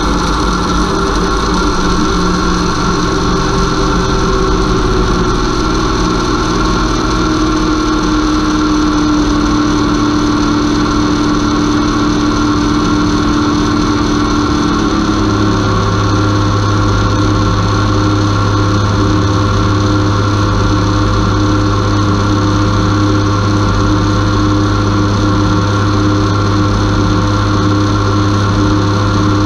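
Converted car alternator running as a motor on a small 30-amp drone ESC, belt-driving a second alternator as a load at about 30 amps. It gives a steady electric hum and whine. About halfway through, its tone shifts and a deeper hum comes in.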